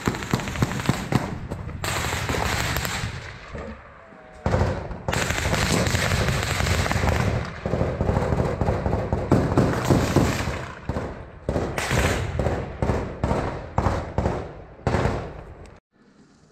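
Close automatic gunfire from a Kalashnikov-type assault rifle: a rapid string of shots in the first second or so, then a long stretch of loud, dense crackling noise with sharp jolts, which falls away near the end.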